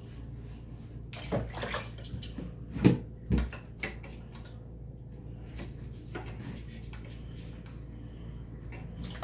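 Kitchen knife knocking and scraping against a wooden cutting board while salmon is cleaned: a run of sharp taps from about a second in to about four seconds, the loudest near three seconds, then a few lighter ones. A steady low hum runs underneath.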